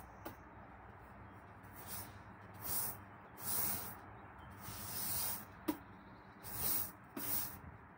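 Long-handled broom sweeping a wet stone patio: the bristles scratch across the floor in separate hissing strokes, about one a second, with one sharp knock about two-thirds of the way through.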